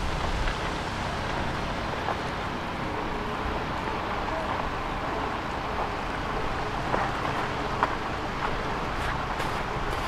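Steady low rumble of outdoor urban background noise, with a few small clicks late on.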